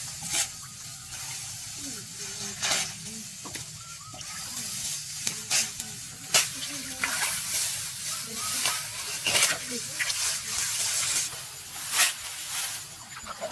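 Dry rice stalks rustling and swishing as they are harvested by hand, with sharp swishing strokes every one to three seconds over a steady rustle.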